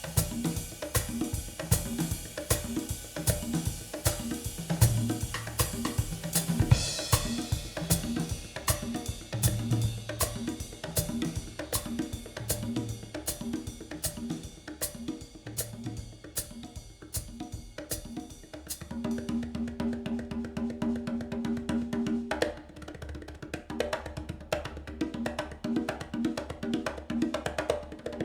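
Instrumental drum-led music played back through Elfton Vegas II four-way loudspeakers and picked up in the room. Kick, snare, hi-hat and cymbals keep a steady beat over a bass line. About two-thirds of the way through, a held low note sounds for a few seconds while the cymbals drop back, then the beat carries on.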